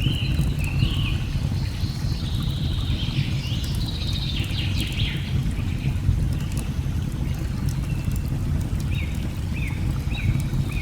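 Steady low rush of a waterfall with birds singing over it in repeated short chirping phrases, busiest in the middle and again near the end. Light sharp crackles of a burning log fire pop through now and then.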